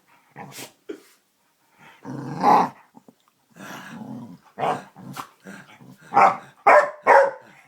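Pit bull making a string of playful growls and grumbling barks, with a loud one about two and a half seconds in and a run of shorter ones near the end.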